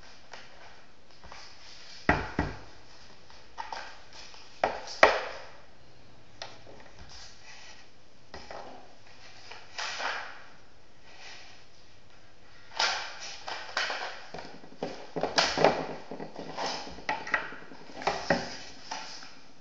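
Cardboard model rifle being handled: scattered knocks, taps and scraping of its cardboard parts, with a few sharp knocks about two and five seconds in and a dense run of knocks and rustles over the last seven seconds.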